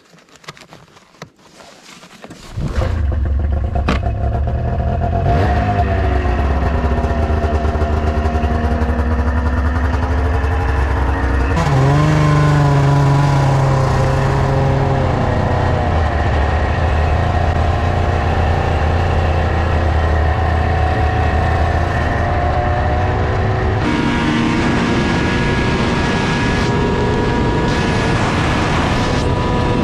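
A 2000 Arctic Cat ZR600 snowmobile's 600cc two-stroke engine starts about two and a half seconds in, after a few faint knocks. It then runs loud and revs up in stages as the sled accelerates hard down the trail.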